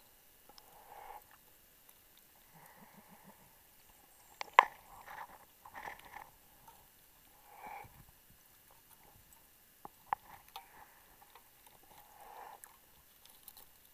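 Muffled underwater handling sounds from a diver laying guideline with a hand-held line reel: scattered sharp clicks and knocks, the loudest about four and a half seconds in, between soft swells of breathing noise every couple of seconds.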